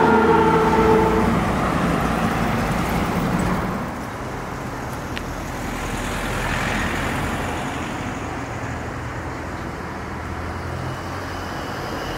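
The last chord of a choir piece dies away in the first second, then street traffic: a steady road hum, with a car passing about six to seven seconds in.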